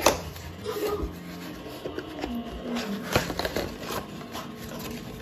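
Cardboard laptop packaging being handled: the box's inner cardboard lid and tray are lifted and shifted, rubbing and scraping, with a few sharp knocks. The loudest knocks come right at the start and about three seconds in.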